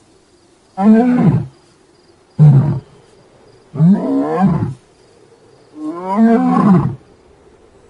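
Male lion roaring: four loud calls about a second and a half apart, each rising and then falling in pitch.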